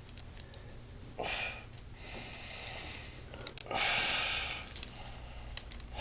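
A person breathing audibly: three noisy breaths, the loudest about four seconds in, with a few faint ticks.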